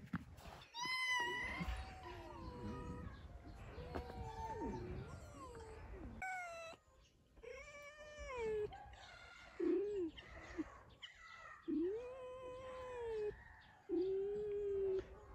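Red foxes calling: a string of high, wavering whines and cat-like yowls, one after another. Most are short, but a few arching calls are held for about a second near the end.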